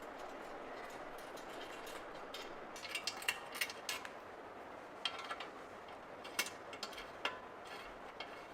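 Scattered sharp metallic clicks and ticks of an Allen wrench working small screws on the bike's frame and fender, in two clusters, over a steady low hiss.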